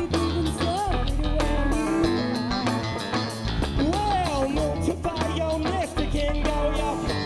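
A live rock band playing over drums and bass, with an electric guitar lead line whose notes slide up and down.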